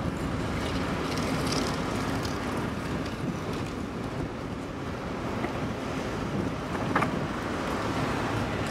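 Wind buffeting the microphone over a steady low rumble of dockside machinery, with a single sharp knock about seven seconds in.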